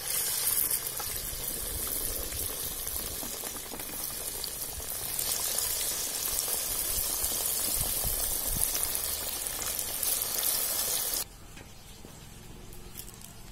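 Chicken pakora pieces sizzling as they are dropped into hot oil in an aluminium kadai, a loud steady frying hiss. About eleven seconds in it drops suddenly to a faint hiss.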